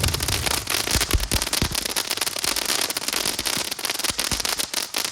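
Star Chaser fountain firework from World Class Fireworks, steady hiss with dense rapid crackling throughout, as the crackle effect kicks in.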